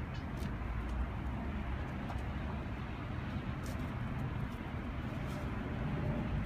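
Steady low outdoor rumble of distant city traffic, with a few faint, short, light ticks.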